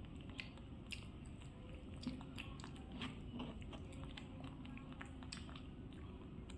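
Chewing and biting of bread rolls, with scattered small clicks and crackles, over a faint steady low hum.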